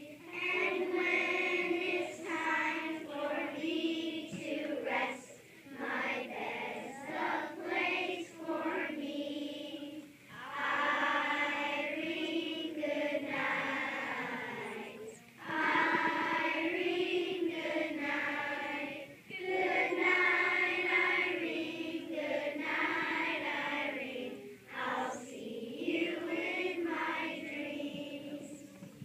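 Group of children singing together as a choir, in sung phrases a few seconds long with short breaks between.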